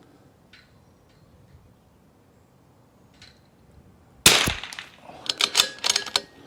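A single shot from a Desert Precision Gunworks RIM-X .22 LR rifle about four seconds in. A quick run of sharp clicks follows, typical of the bolt being worked to eject the case and load the next round.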